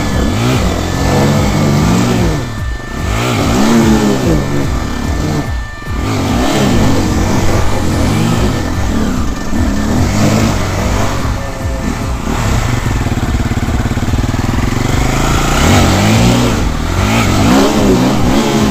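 Enduro dirt bike engine revving up and down over and over, the pitch climbing and dropping every second or two, with a steadier stretch of even running about two-thirds of the way through.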